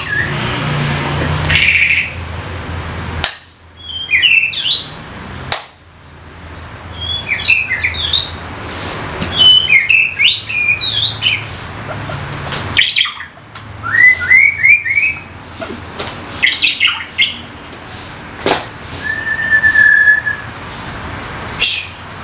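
White-rumped shama calling in loud bursts of quick, sharp chirps and rising whistled notes, with gaps between phrases and one held whistle near the end.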